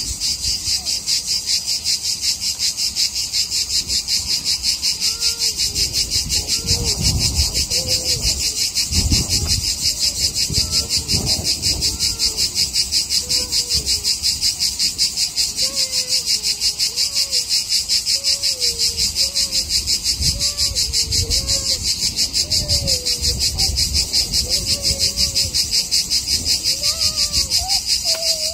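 Cicada singing: a loud, continuous high-pitched buzz made of rapid, even pulses.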